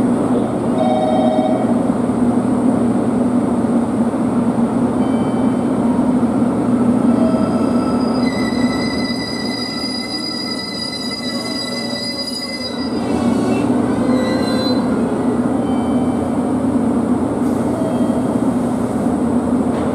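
JR Kyushu KiHa 200 series diesel railcar pulling into a platform under a station roof, with a steady rumble of engine and running gear. It slows with a high, multi-toned brake squeal from about 8 to 13 seconds in, then comes to a stop.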